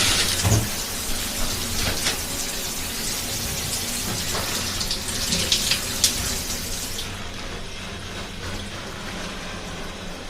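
Water running and splashing steadily. The high hiss falls away about seven seconds in.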